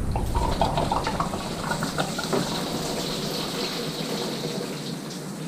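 Engine coolant gushing out of the opening as the old plastic thermostat housing comes off, splashing into a bucket. There are a few clicks of parts being handled in the first couple of seconds, and the flow slowly eases off.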